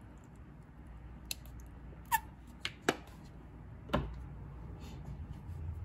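Plastic ketchup squeeze bottle squirting, with about five short sputters and clicks. One near two seconds in has a brief falling squeak, and the strongest comes about four seconds in.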